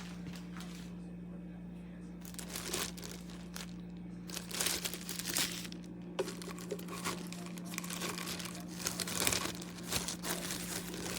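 Hamilton Beach FlexBrew Trio drip coffee maker brewing: irregular crackling, sputtering hisses over a steady low hum.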